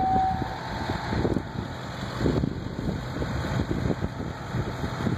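A fire engine's motor running as it rolls slowly past, a low rumble, with wind buffeting the microphone.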